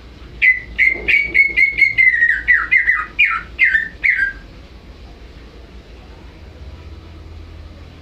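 Green leafbird (cucak ijo) singing a fast run of about a dozen loud whistled notes over some four seconds, the later notes sliding downward in pitch. The song stops about halfway in.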